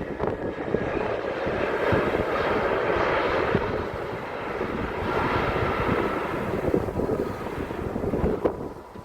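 Jet airliner passing close by, its engines giving a steady rushing noise with a faint whine that eases off near the end.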